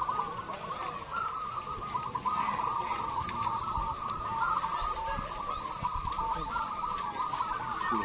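A chorus of many zebra doves (perkutut) cooing at once, their short staccato coos overlapping into a steady, unbroken chorus.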